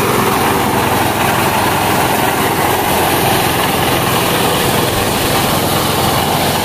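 Small petrol engine driving a double-blower mini rice thresher, running steadily while rice stalks are fed into the threshing drum. The sound is one continuous, even mechanical noise of engine, drum and blower fans.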